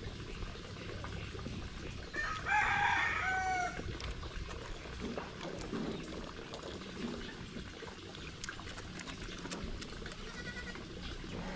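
A rooster crows once, about two seconds in, in several stepped notes that end in a falling tail. A shorter, fainter call follows near the end.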